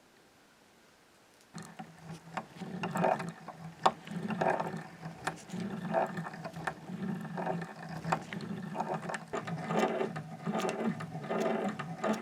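Vintage "The Gem" pinking machine being hand-cranked, its gears and cutter wheel turning with a steady whirr and rhythmic clicking. It starts about a second and a half in.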